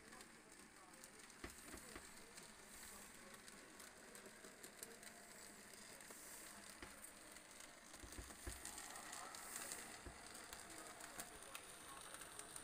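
Faint crackling hiss with scattered light clicks and a few soft thumps from a model Baldwin steam locomotive and its goods wagons running slowly along the layout's track.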